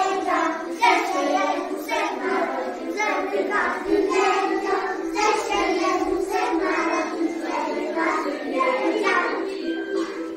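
A group of preschool children singing together in unison.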